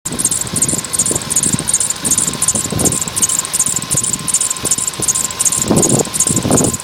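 Volkswagen Polo Sedan engine running, its drive belt whistling in even high-pitched chirps about two to three times a second.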